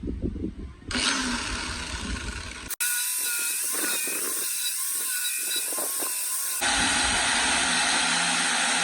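A motor-driven tool running steadily with a wavering whine, heard in several clips joined by hard cuts about 1, 3 and 7 seconds in.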